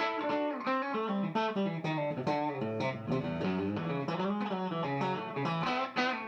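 Background music led by a guitar picking a quick melody of single notes.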